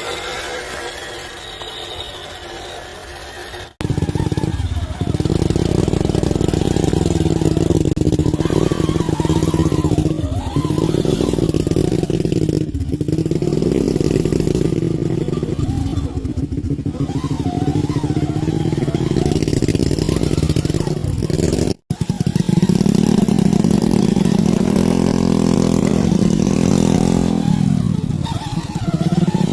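A 1/10 scale RC crawler's motor and drivetrain running as it drives off-road, the pitch rising and falling with the throttle. It starts suddenly about four seconds in and breaks off sharply once more near the two-thirds mark.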